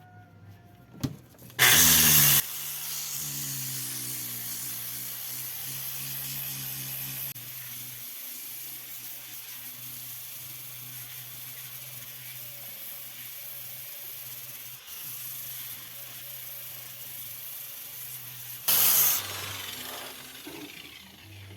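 Angle grinder with an abrasive disc grinding, a steady hiss, with a short much louder burst about two seconds in and another near the end.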